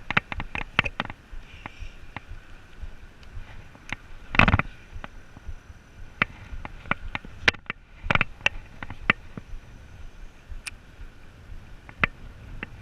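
Irregular sharp clicks and rustling from fishing tackle and clothing handled right against a chest-mounted camera, with two louder scuffs about four and a half and eight seconds in.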